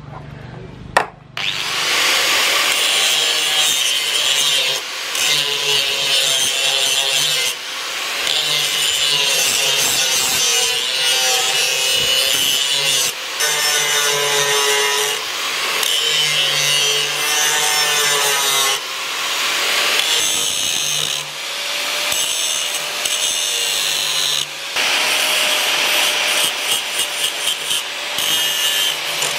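Handheld angle grinder grinding the edge of a steel machete blade. It starts after a single sharp knock about a second and a half in, and the motor's whine wavers as the disc bites the steel. The grinding eases for a moment every few seconds as the disc is lifted and put back.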